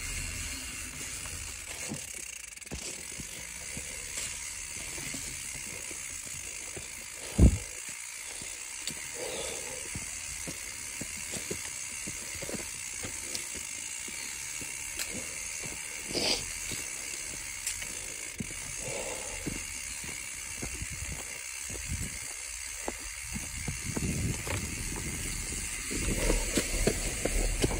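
Mountain bike rolling down a dirt singletrack: tyres on dirt and a steady fine clicking like a rear freehub ratchet while coasting. A loud sharp knock comes about seven and a half seconds in and a smaller one about sixteen seconds in, and the noise grows louder near the end.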